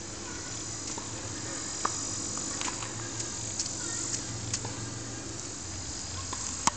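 A tennis ball struck with a racket forehand, one sharp pop near the end, with a few fainter taps earlier, over a steady high background hiss.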